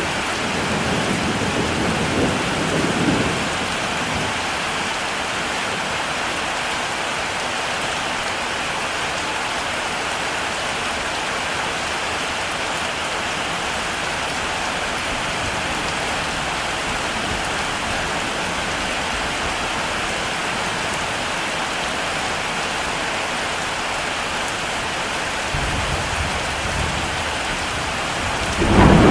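Heavy rain falling steadily, a dense even hiss. Low rolls of thunder rumble in the first few seconds and again in the last few, the final one the loudest.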